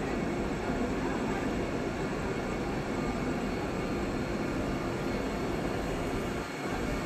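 Vande Bharat Express electric multiple-unit train running along the platform, a steady noise of wheels on rail and the train's running gear.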